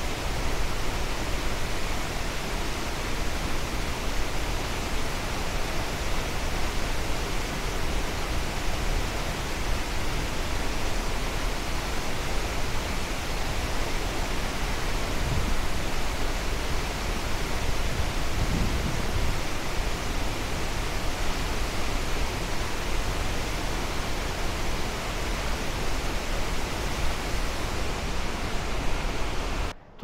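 Steady rushing of a large waterfall in full spring flood, heavy water pouring over the falls. The sound cuts off abruptly near the end.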